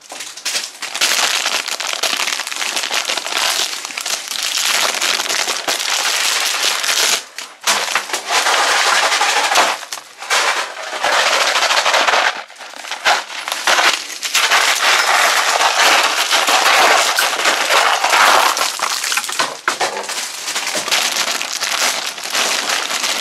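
A large heap of plastic-wrapped candies rustling and crinkling as the pieces are moved about, a dense crackle that goes on in long stretches with a few short breaks.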